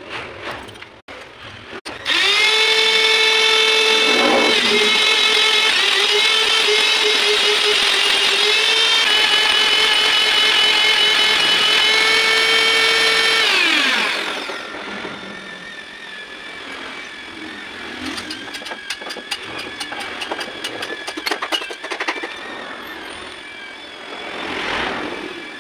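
Electric die grinder mounted in a lathe's tool post as a tool-post grinder for the bore of a driveshaft yoke. It is switched on about two seconds in, runs at a steady high whine for about twelve seconds, then winds down. After that comes quieter uneven noise with a quick run of clicks.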